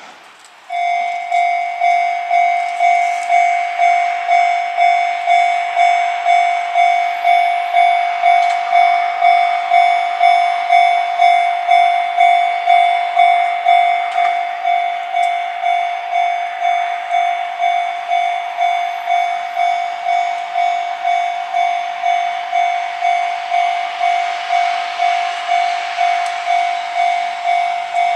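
Japanese level-crossing warning bell, an electronic sounder, starting suddenly about a second in and ringing evenly at about two strokes a second. It grows slightly quieter in the second half.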